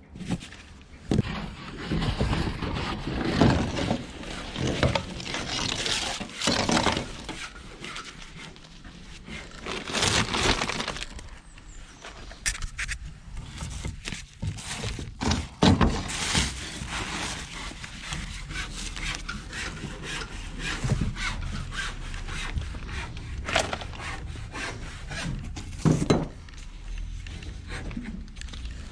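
A saw cutting in uneven strokes, mixed with scraping and knocks as debris in a skip is shifted.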